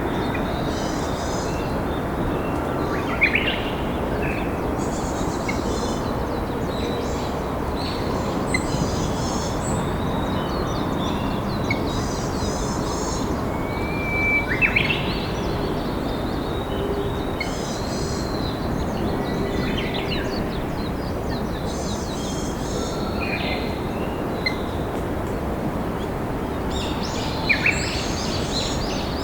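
Steady rush of a flowing river, with wild birds chirping and singing over it in short phrases, one of them a short held whistle about halfway through.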